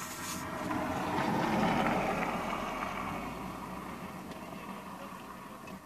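A car driving past, the tyre and engine noise swelling to a peak about two seconds in and then slowly fading, heard from inside another car.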